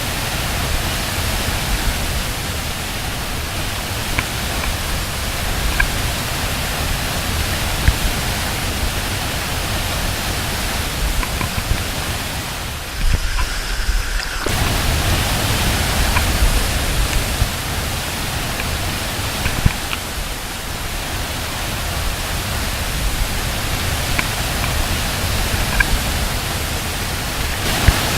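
Steady rush of a waterfall's falling water, with a strong low rumble underneath.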